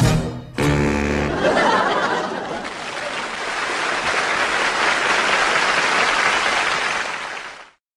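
One short saxophone note, then an audience applauding and laughing, which fades out near the end.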